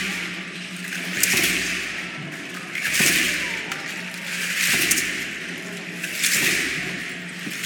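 Danza azteca dance music: the dancers' ankle rattles shake together in a swell on each step, with a drum thump starting each swell, about every second and a half, echoing in a large hall.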